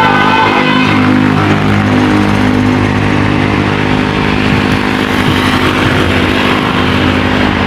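A bus's diesel engine running loud and close with a steady low hum and a rough noise over it, as the bus goes by. A multi-note telolet horn melody ends in the first second.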